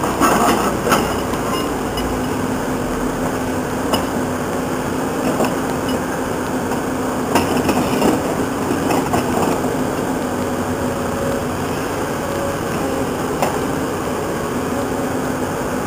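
Volvo crawler excavator's engine running steadily, with scattered irregular metal clanks and clinks as its orange-peel scrap grapple bites into and drops scrap steel.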